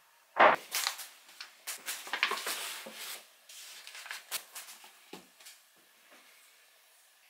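Paper flour bags and packets being handled and set down on a wooden countertop: a thump about half a second in, then paper rustling and light knocks and clicks that die away after about five seconds.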